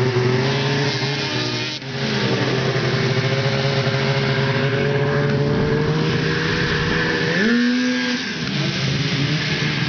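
Arctic Cat two-stroke snowmobile engines running steadily at idle, with a short rev rising in pitch about seven and a half seconds in.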